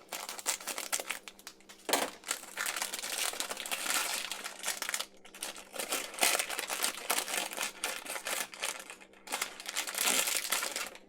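A Hot Wheels Mystery Models blind bag, a plastic foil pouch, being opened and crinkled by hand in stretches with short pauses.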